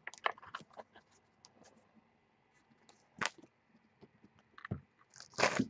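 Faint handling noise of freshly opened trading cards and their foil pack wrapper: a scatter of small clicks and crinkles at the start, a few isolated clicks later, and a short rustle just before the end.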